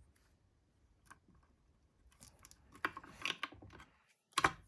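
Scattered light plastic clicks and taps from a plastic toy cash register being handled, with a sharper click near the end.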